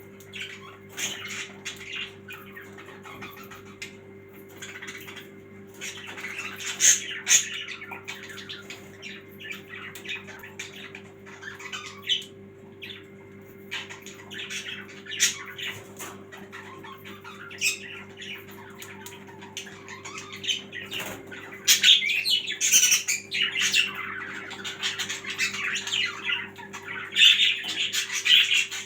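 Small birds chirping in a busy run of short calls, louder and denser in the last third, over a steady low hum.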